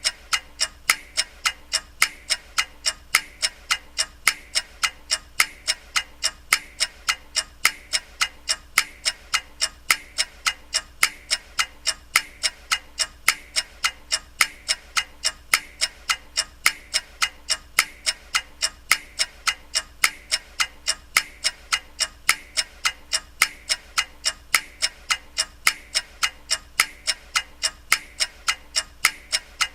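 Clock ticking steadily and evenly, about two ticks a second.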